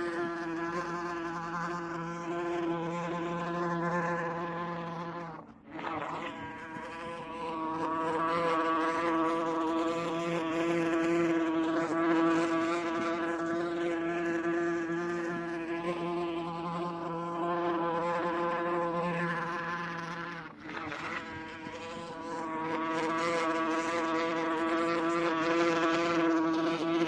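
Wasp buzzing in flight: a steady, pitched drone that briefly fades and dips twice before coming back.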